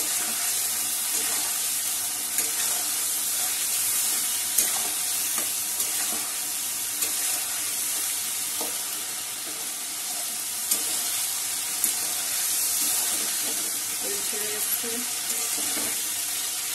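Spice paste, potatoes and tomato sizzling in hot oil in a metal kadai, with a steady frying hiss, stirred with a spatula that scrapes and clicks against the pan now and then. This is the koshano stage, the masala fried down in the oil.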